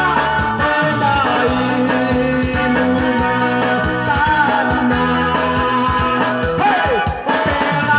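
A man singing into a microphone over live electronic keyboard accompaniment with a steady beat, amplified through a PA system.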